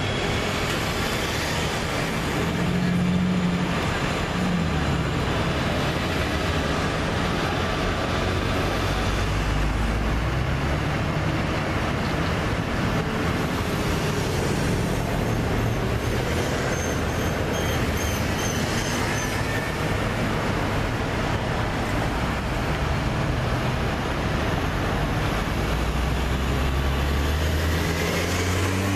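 Road traffic: cars and an ambulance driving past close by, their engines running, with an engine rising in pitch as a vehicle pulls away near the end. A few faint short high beeps sound partway through.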